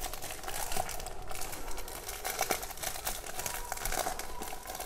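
Thin clear plastic packaging crinkling in the hands as it is worked open, a run of irregular small crackles.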